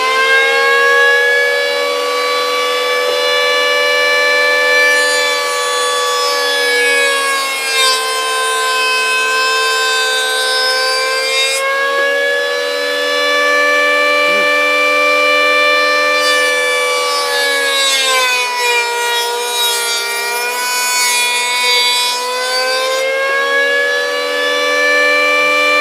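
Electric motor of a home-built mini planer running at full speed with a high, steady whine. Twice, for several seconds each, a rasping cutting noise comes in as wood is fed across the blade, and the motor's pitch sags under the load during the second pass.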